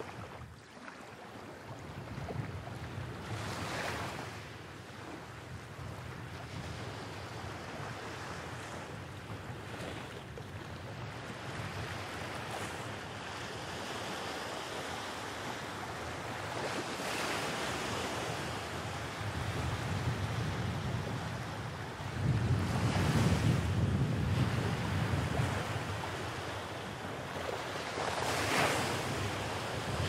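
Small ocean waves breaking and washing up a sandy beach, the surf swelling and fading every several seconds. Wind rumbles on the microphone underneath, strongest in the latter part.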